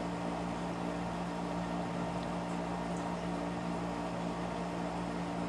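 Steady hum of a running machine, with a constant low tone over an even hiss.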